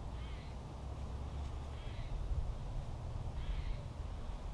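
Wind buffeting the microphone with a steady low rumble, while a bird calls three times, short calls about a second and a half apart.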